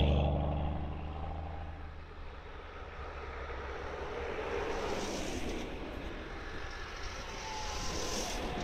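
Off-road 4x4s driving past one after another on a snowy track: a close engine drone fades away over the first two seconds, then the engine and tyre noise swells again as the next vehicles pass, about five seconds in and near the end.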